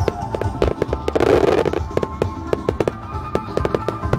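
Aerial fireworks shells bursting overhead: a rapid run of sharp bangs and crackles, with a denser rushing burst about a second in. Music plays underneath.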